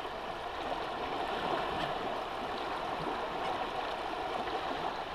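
Steady sound of river current flowing, around a golden dorado held in the water by hand to revive it. There are no distinct splashes.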